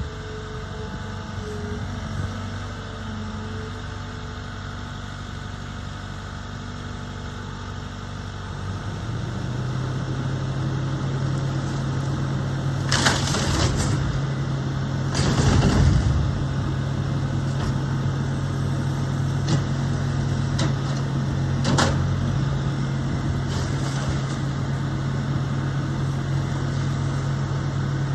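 A machine's engine runs steadily and picks up speed about nine seconds in. It is punctuated by several sharp crashes, the loudest around the middle.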